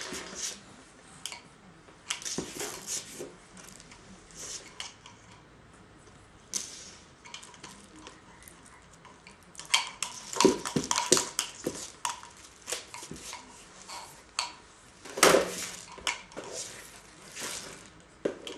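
Hard plastic toys clattering and knocking together in irregular clusters of sharp clicks, busiest about ten to twelve seconds in and again around fifteen seconds.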